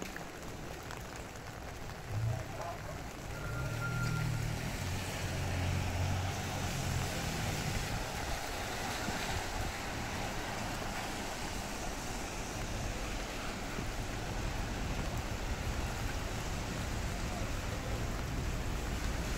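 Steady hiss of rain falling on a city street, with a motor vehicle's engine rumbling past from about two seconds in until about seven seconds in.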